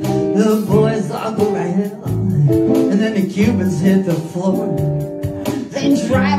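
Live music: an amplified acoustic guitar strummed in a steady rhythm, with a man singing over it.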